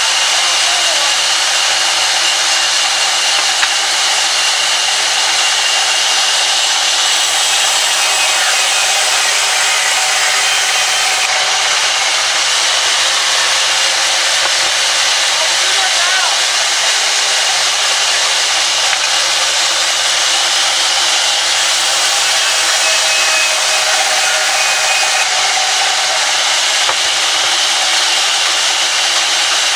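Horizontal band sawmill running with its blade sawing through a log: a loud, steady hiss with a high whine, unchanging throughout.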